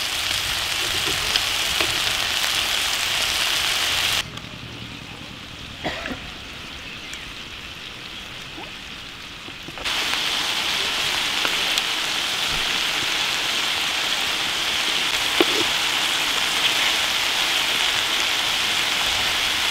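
Chicken wings and garlic frying in oil in an iron pan, a dense steady sizzle that turns quieter and duller from about four to ten seconds in, then comes back full. A few light clicks sound over it.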